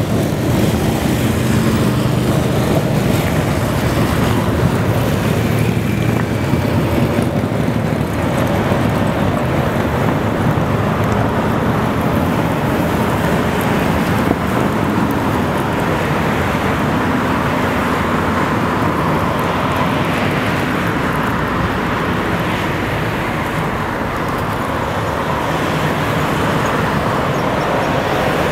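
Road vehicles driving past in a steady stream: motorcycle engines in the first several seconds, then a line of passing cars with tyre noise on the road surface.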